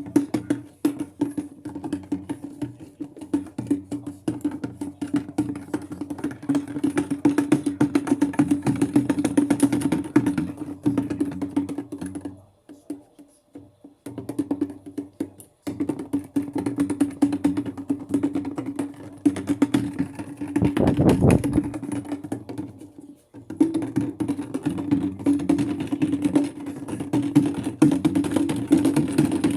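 Maytag washing machine agitating on its delicate cycle: a steady motor hum under a dense clatter of knocks and sloshing. It runs in stretches of several seconds, breaking off briefly about halfway through, as the drum stops and turns the other way.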